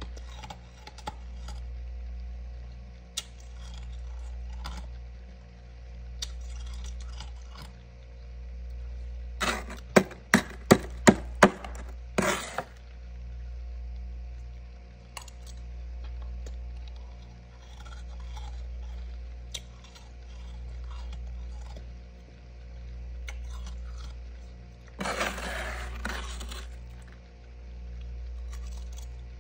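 Metal spoon scraping and chipping frost from inside a small freezer: a quick run of about six sharp scrapes and knocks about ten seconds in, and a longer scrape near the end. Under it a steady low hum swells and fades about every two seconds.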